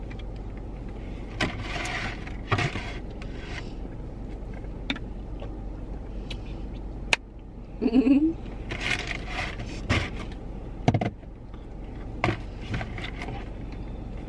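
Small handling noises inside a car: a paper wipe rustling and a few short clicks and taps, over the steady low hum of the car. A short vocal sound comes about 8 seconds in.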